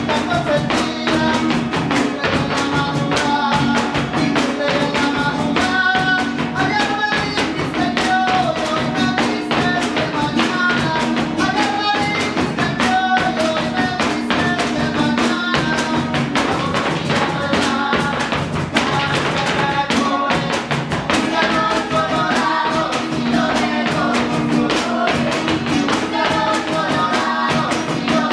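Son jarocho played on strummed jaranas and other small guitars, with voices singing over a fast, steady strummed rhythm.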